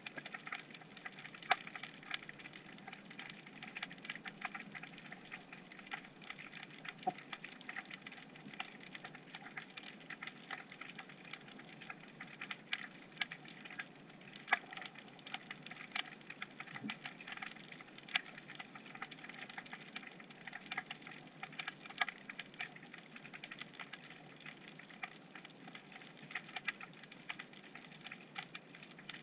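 Underwater crackling: a steady stream of sharp, irregular clicks over a low hiss, picked up by a camera in its waterproof housing on the sea floor.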